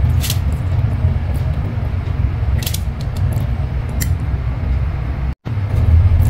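A perforated stainless-steel spoon scraping and clinking against a steel pan as cooked rice is stirred together with tomato thokku, with a few sharp metal clicks over a steady low hum.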